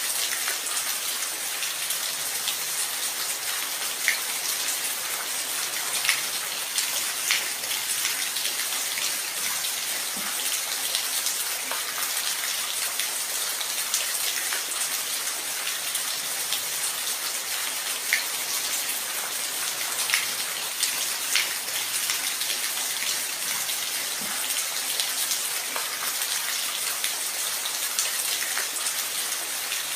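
Steady rain falling, an even hiss with scattered louder individual drop impacts.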